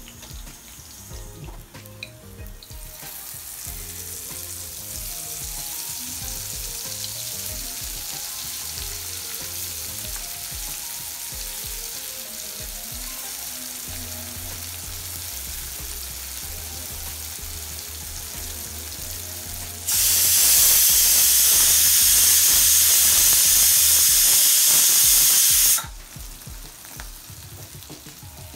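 Pieces of salted ribbonfish dry fish frying in shallow oil in a kadai, a steady sizzle that starts about three seconds in. The sizzle turns much louder for about six seconds past the middle and drops back abruptly.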